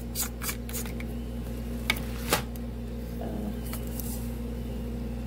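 Barbecue sauce being squeezed from a bottle over chicken: a few short clicks and taps, the sharpest about two seconds in, over a steady low hum.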